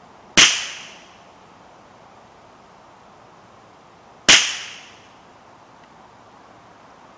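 Two shots from an unsuppressed Ruger 10/22 .22LR rifle, about four seconds apart, each a sharp report with a short fading echo. The CCI Black Box rounds are subsonic, around 1030 ft/s at most, so there is no sonic crack.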